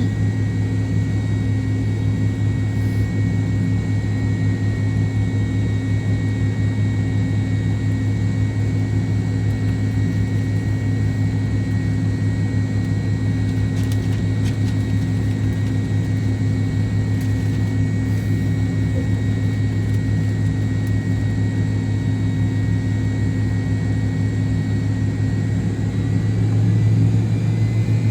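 Steady drone of an MD-88's rear-mounted Pratt & Whitney JT8D turbofans heard inside the cabin, with a strong low hum and a few thin steady high whines, swelling slightly near the end.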